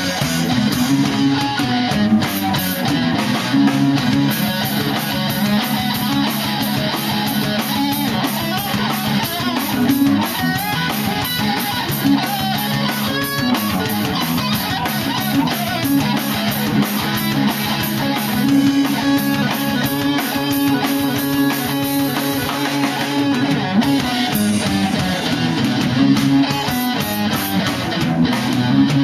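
Loud rock music with electric guitar and a drum kit, played steadily without a break.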